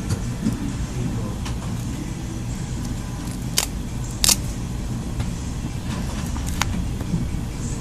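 A few small, sharp clicks of plastic phone parts being handled and pried as the LCD is worked out with a thin pick. The loudest click comes just past the middle. A steady low hum runs underneath.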